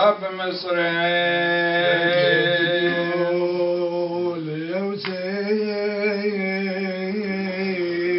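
Male voices chanting with long held notes. The pitch steps up about four and a half seconds in.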